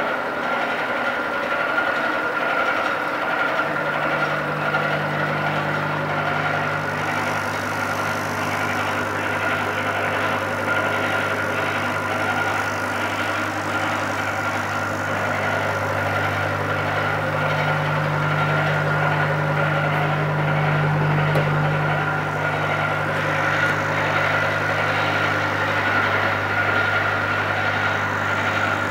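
Automatic tapping machine with a vibrating linear feeder running: a steady machine hum and buzz with a fast, even rattle of parts in the feeder. A deeper hum sets in about four seconds in.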